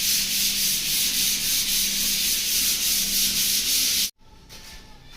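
Loud steady hissing noise with a faint regular pulse about four times a second and a low hum beneath it, starting and stopping abruptly about four seconds in.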